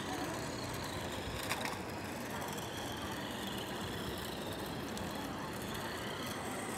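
Small radio-controlled car driving on concrete, a faint whine rising and falling over a steady outdoor hiss, with a sharp click about a second and a half in.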